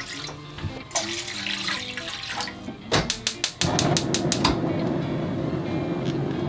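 Water poured from a measuring jug into an empty frying pan, splashing. About three seconds in, a quick run of sharp clicks from a gas hob's igniter, then the burner catches with a steady rush of flame.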